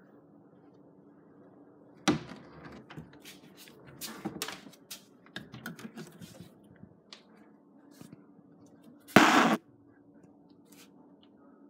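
A cupboard door clacks open, then cans and packets knock and rattle on pantry shelves as they are rummaged through. The door's clack about two seconds in is sharp, and a loud half-second scrape a little after nine seconds is the loudest sound.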